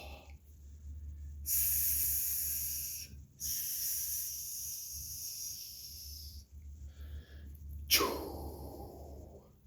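A man breathing out two long hissing "shhh" sounds, the Six Healing Sounds exhalation he takes for the liver sound. A sudden, forceful burst of breath follows near the end.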